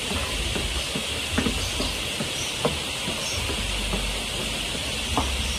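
Steady hiss with a low rumble underneath, and a few scattered soft thuds of sneakers landing on a concrete floor as someone jogs and hops in place.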